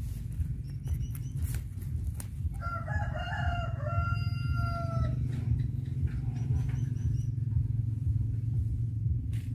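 A rooster crowing once, a single call of about two and a half seconds starting near three seconds in. It sits over a steady low rumble, with a few sharp clicks in the first seconds.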